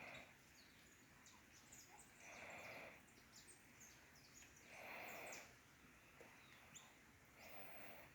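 Faint dawn-chorus-like mix of several small birds chirping and calling, with a soft hissing swell that comes and goes about every two and a half seconds.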